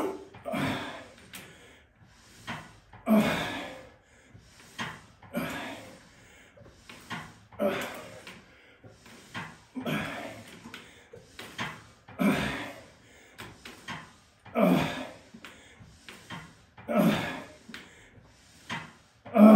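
A man breathing hard in time with resistance-band pull-aparts: a forceful breath about every two and a half seconds, each about half a second long.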